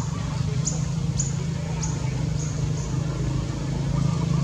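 A steady low engine-like hum runs throughout. Over it come short high chirps, about one every half second, that fade out after about three seconds.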